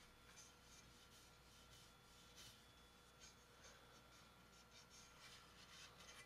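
Faint, irregular swishes of a cloth rubbing over a toy rifle's freshly blued metal, against near silence.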